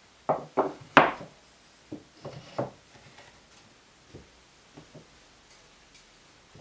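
Birch plywood pieces knocking against each other as they are set down and slotted into a plywood base. Three sharp knocks come within the first second, then a few lighter ones, then faint taps.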